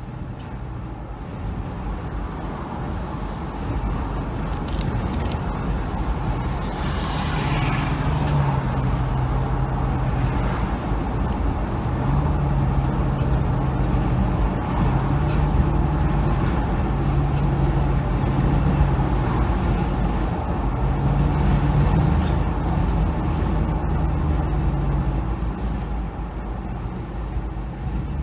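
Toyota FJ Cruiser on the move: steady engine and road rumble, with a low droning tone that comes and goes in stretches of a second or two.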